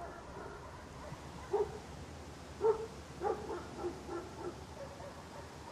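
Puppies yelping in short, pitched calls. One comes about one and a half seconds in, then a quick run of them from about two and a half to four and a half seconds in.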